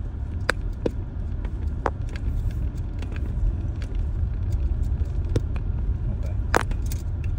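Car driving over a rough unpaved sand-and-dirt track, heard from inside the cabin: a steady low rumble of tyres and engine, with scattered sharp clicks and knocks.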